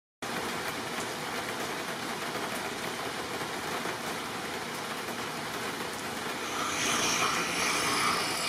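Electric quarter-sheet palm sander running steadily against a poplar board, a dense even hiss of sandpaper over a motor hum, cutting in suddenly just after the start and growing a little harsher and louder near the end.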